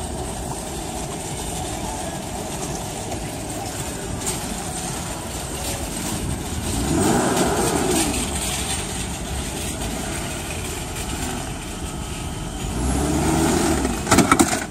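A car engine running, revved up and back down twice, over steady outdoor noise, with a few sharp knocks near the end.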